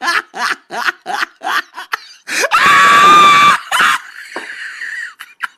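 Rapid rhythmic laughter, then a little over two seconds in a sudden loud, shrill, steady-pitched sound lasting about a second and a half, trailing off into a fainter hiss.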